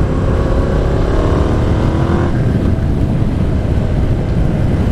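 Yamaha MT-07's parallel-twin engine through a Mivv GP Pro aftermarket exhaust, pulling under way with its pitch rising slowly for about two seconds before levelling off, under heavy wind rumble on the microphone.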